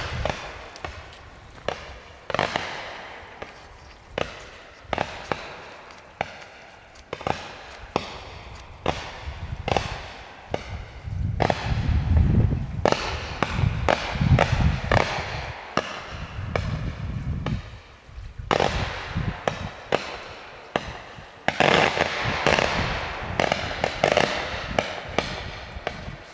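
A Category 2 consumer battery firework (Panda Feuerwerk 'Colorful Balloons') firing shot after shot, each tube launching a coloured star with a sharp bang. The shots come in quick runs, densest in the middle and again near the end.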